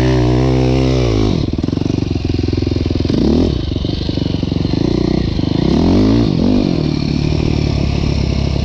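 KTM SX-F 450 four-stroke single-cylinder dirt bike with an Akrapovič exhaust, ridden along a dirt trail while the throttle is opened and closed. The engine note climbs and drops in pitch three times: at the start, about three seconds in, and about six seconds in.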